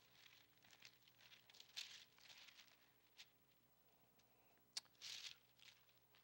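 Near silence with the faint rustle of thin Bible pages being turned, a few soft ticks among it, and a slightly louder rustle about five seconds in.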